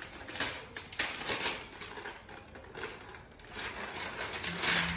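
Clear plastic wrapping crinkling and crackling in quick, irregular rustles as it is peeled and pulled off a new laptop.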